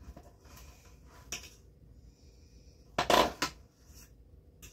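Dishes and cutlery clattering on a kitchen counter: a few light clinks, then a louder clatter about three seconds in.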